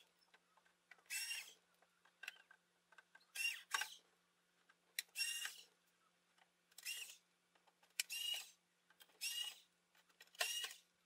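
A run of short squeaks, about eight of them spaced a second or so apart, from a screwdriver turning screws out of a water dispenser's sheet-metal back panel.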